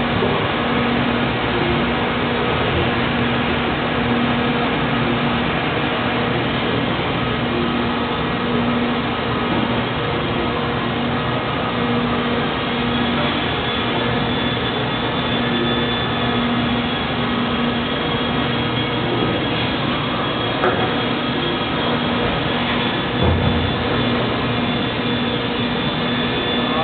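Steady drone of a running injection moulding machine on a factory floor, with a low hum that comes and goes and a dull knock near the end.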